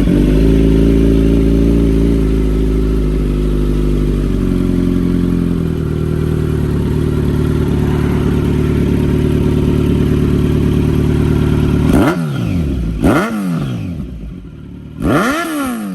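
Kawasaki Z900's inline-four motorcycle engine idling steadily through its exhaust, then revved in three quick throttle blips near the end, each rising and falling in pitch.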